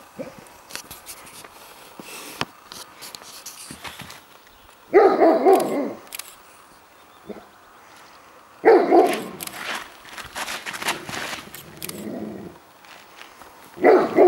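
Curly-coated retriever barking in three loud bouts: about five seconds in, again around nine seconds, and once more near the end.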